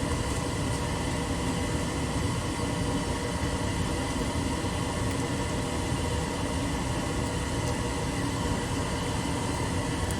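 Steady machine hum with a rushing noise underneath, unchanging throughout.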